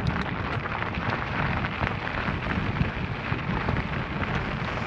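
Steady rumbling, crackling riding noise of a Specialized Turbo Levo e-bike climbing a rough gravel 4WD track, picked up by a helmet-mounted camera.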